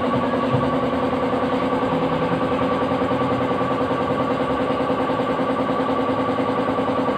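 A motor running steadily: an even hum that holds its pitch, with a fast, regular pulse.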